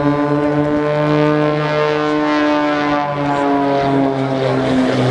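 Piston propeller engines of two aerobatic planes flying a smoke-trailing dive, a loud, steady, pitched drone that sinks slightly in pitch.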